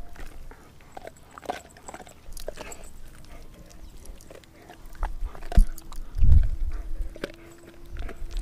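Doberman chewing a raw frozen pig's foot: irregular crunches and clicks of teeth on bone, with a brief low rumble about six seconds in.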